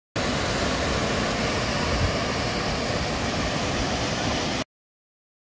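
Waterfall on the Big Sioux River, a steady rushing roar of falling water with a heavy low rumble, starting and cutting off abruptly.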